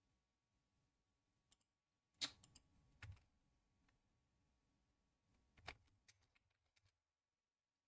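Scattered faint clicks and taps at a computer desk, the sharpest about two seconds in and again near six seconds; otherwise near silence.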